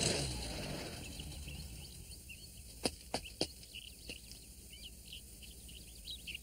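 Cartoon jungle ambience: many small bird chirps and tweets, with three sharp clicks in quick succession a little under three seconds in. A short whoosh sweeping downward opens it and is the loudest sound.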